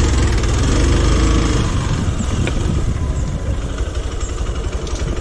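Hero XPulse 200 single-cylinder motorcycle engine running under the rider on a dirt trail, pulling steadily at first, then easing off about two seconds in to a quieter, slower thudding beat.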